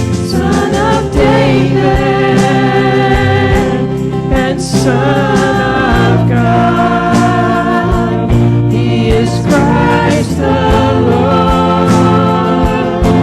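Church worship music: several voices singing together over a band, with regular drum beats.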